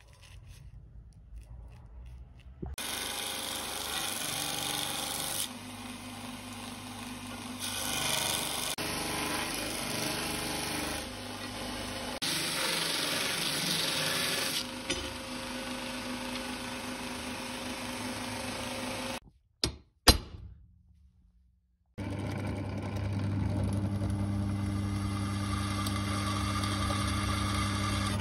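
Belt grinder grinding a spring-steel sword blade, its noise swelling and easing as the blade is pressed and moved across the belt. It stops, a single sharp click follows, then a drill press runs with a steady hum as it drills the blade.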